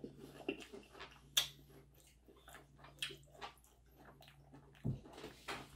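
Irregular crunching and clicking of crispy deep-fried pork mesentery (chicharon bulaklak) being chewed, with a sharper click about a second and a half in and a low thump near the end.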